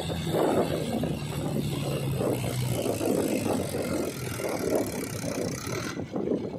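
Mahindra 585 tractor's diesel engine running under load as it climbs a steep sand dune, with an uneven pulsing chug.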